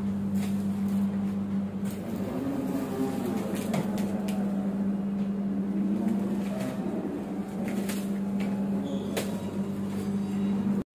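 Steady hum of a passenger train carriage's onboard equipment, holding one low tone, with scattered light clicks and knocks.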